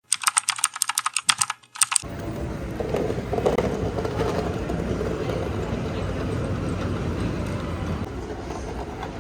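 A fast, even run of keyboard-like clicks for about two seconds, then a steady low rumble of background noise.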